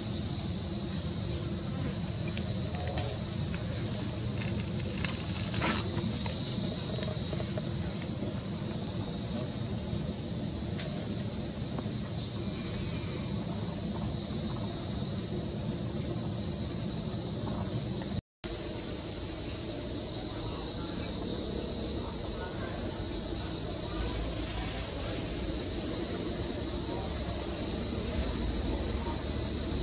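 Loud, steady, high-pitched drone of a daytime insect chorus. It cuts out for a split second a little past halfway.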